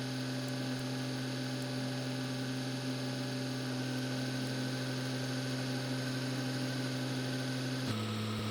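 Steady low hum with a higher overtone. It holds level and then steps slightly down in pitch near the end.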